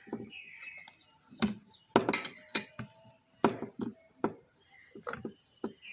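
Irregular knocks and clinks of kitchen utensils and cookware being handled, about nine strokes at uneven spacing, the loudest a cluster about two seconds in.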